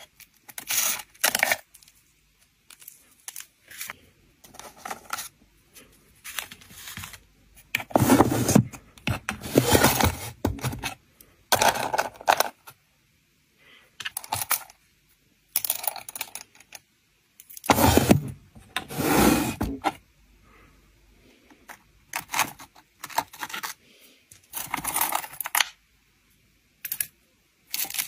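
Hands rustling and clattering plastic-sleeved nail files and tools as they are laid into small wooden drawers, with the drawers sliding and knocking open and shut. The sounds come in short bursts with brief pauses between them.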